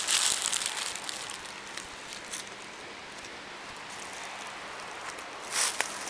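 Footsteps crunching through dry fallen leaves, loudest at the start and again about five and a half seconds in, with a quieter steady hiss between the steps.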